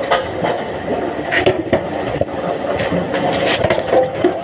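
Machinery running steadily, with irregular knocks and scrapes of wooden logs being handled.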